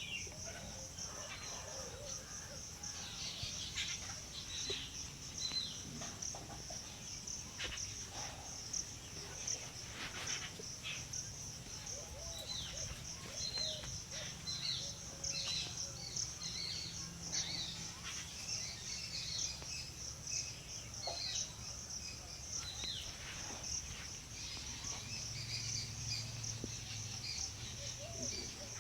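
Outdoor ambience of insects trilling steadily in a high pulsing chorus, with birds giving short, falling whistled calls scattered throughout, over a low steady hum.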